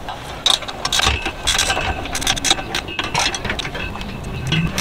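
Hand tools and bolt hardware clicking and clinking against the trailer's steel axle and frame while a Sumo Springs rubber bump stop is fastened. The clinks come irregularly, several in quick bunches.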